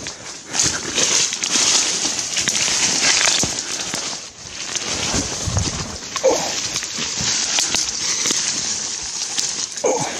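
Pushing through dense undergrowth: dry fern fronds, twigs and leaf litter rustling and crackling close to the microphone, dipping briefly about four seconds in.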